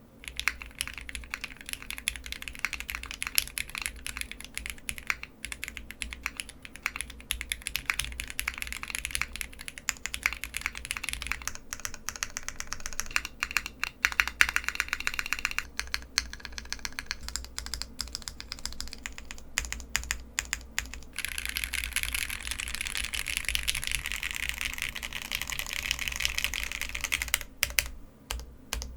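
Typing on a custom mechanical keyboard, the Mr. Suit TKL with an aluminum plate, SP-Star NaNa switches, ePBT keycaps and no dampening foam: a steady clatter of keystrokes that becomes a faster, denser run about two-thirds of the way through.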